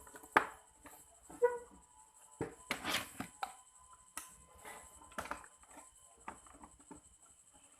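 Irregular light clicks and taps of small metal tools being handled against the phone's circuit board and bench, a cluster of them about two and a half to three seconds in.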